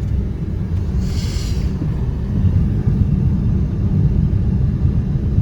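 Steady low rumble of a car driving, heard from inside the cabin with the windows closed, on freshly smoothed pavement. A brief hiss comes about a second in.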